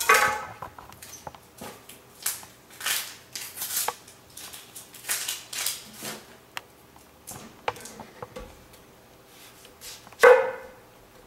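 Chef's knife chopping through a whole onion onto a wooden cutting board: one sharp chop at the start and another about ten seconds in. In between come short crackles and rustles as the onion's dry papery skin is peeled off by hand.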